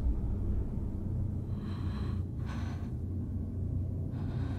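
A few short, sharp breaths from actors in a TV drama scene, about two seconds in, half a second later and again near the end, over a steady low rumble.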